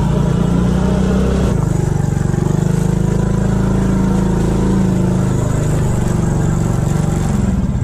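Motorcycle engine running as the bike is ridden, its note wavering as the throttle changes.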